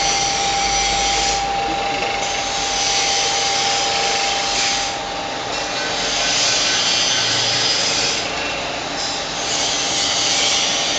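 Plastic-cup ring-cutting machine running and cutting the rims off plastic cups: a steady motor whine under a harsh cutting noise that swells about every three seconds as cups are fed through.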